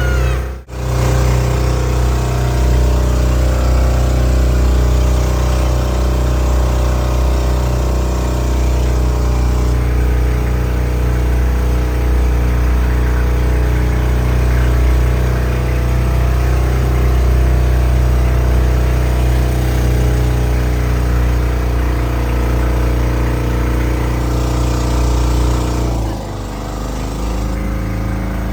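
A motorboat engine running steadily at cruising speed, a loud, even hum. About two seconds before the end it drops in level and pitch as the boat throttles back towards the shore.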